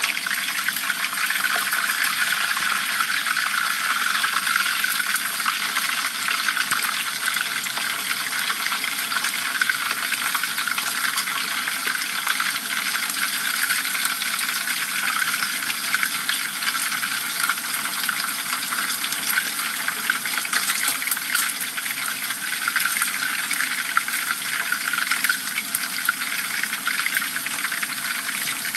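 Whole dorado fish deep-frying in a pan of hot oil: a steady sizzle thick with fine crackling.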